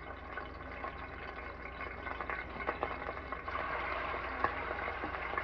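Seasoned chicken frying in hot oil in a pot: a steady crackling sizzle that grows louder about three and a half seconds in, as a second piece is laid in the oil.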